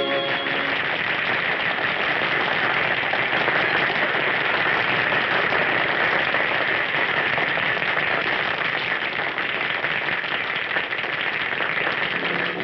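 Audience applauding steadily after a song, heard on a 1930s film soundtrack with no high end; the last note of the music dies away in the first moment.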